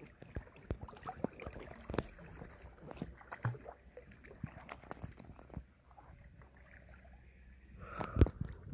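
Pool water splashing and lapping close to the microphone as a Dalmatian puppy paddles, with many small irregular splashes. About eight seconds in come a few louder, muffled thumps as the microphone goes under the water.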